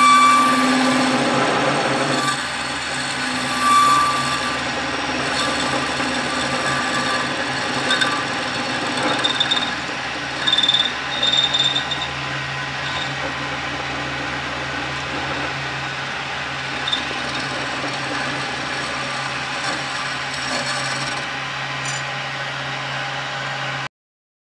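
Homemade lathe driven by a treadmill motor, running steadily while its cutting tool works a spinning metal workpiece, with louder moments coming and going over a steady low hum. The sound cuts off abruptly near the end.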